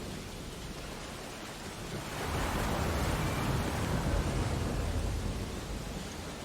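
Ocean waves: a steady wash of surf, with one wave swelling louder about two seconds in and easing back near the end.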